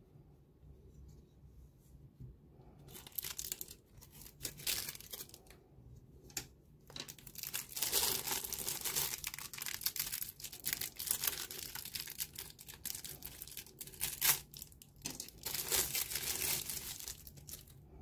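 Thin clear plastic wrap crinkling and tearing as it is pulled off a pen by hand. It is quiet for the first couple of seconds, then crackles in irregular bursts, thickest in the second half.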